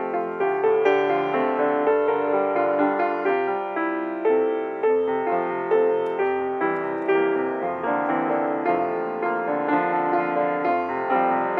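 Piano playing a slow closing postlude, each note or chord struck and left to ring.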